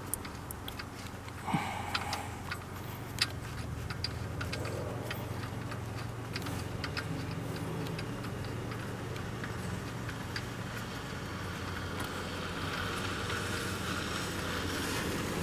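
3/8-inch ratchet with a 15 mm socket clicking in short runs of ticks as a pulley bolt on the engine's belt drive is backed out, over a low steady hum.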